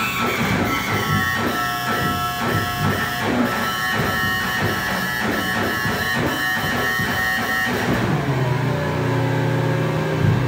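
Home-built light-responsive oscillator synthesiser (the "OSC^n") making dense electronic noise, its pulses driven by Morse-code light flashes. Rapid stuttering pulses run over a few held high tones, after a falling glide at the start. About eight seconds in, the pulsing drops away into a falling sweep and low droning tones.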